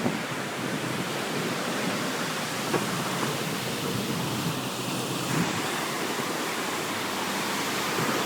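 Steady, even wash of Lake Superior waves breaking on the beach.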